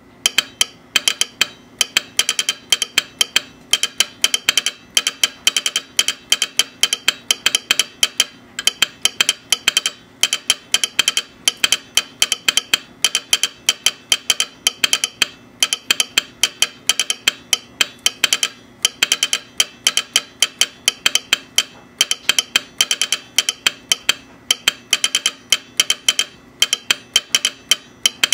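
Telegraph sounder of a Signal Electric learner set clicking out American Morse code, driven by an Instructograph's perforated paper tape passing a spring contact. Rapid clicks and clacks come in groups of letters and words, with short pauses between them.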